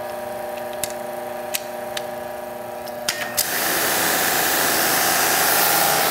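Kranzle electric pressure washer humming steadily, with a few clicks. About three seconds in, the spray gun is triggered and a loud, steady hiss of high-pressure water spray takes over.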